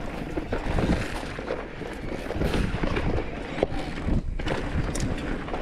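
Electric mountain bike clattering over a rough, rocky trail: a steady low rumble with many irregular knocks and rattles as the bike is jolted.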